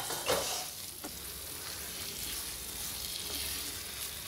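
Thick cauliflower and pea curry sizzling in a non-stick pan as a wooden spatula stirs and scrapes through it, with a few sharper strokes in the first second.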